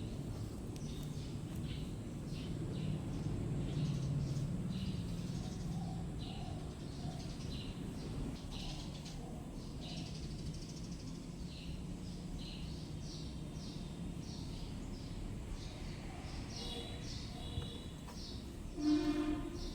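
Small birds chirping repeatedly, short high chirps over a steady low hum, with one louder call near the end.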